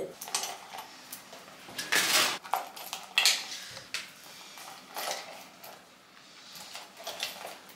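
A handful of short clinks and rustles from a small canvas purse with a metal chain strap being handled and filled with small items, the loudest about two seconds in.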